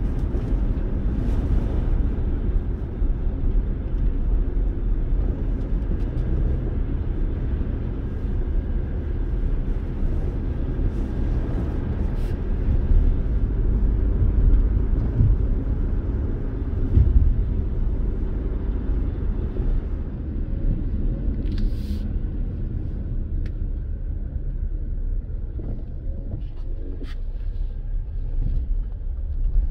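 A car driving, heard from inside the cabin: a steady low rumble of road and engine noise, with a few faint clicks.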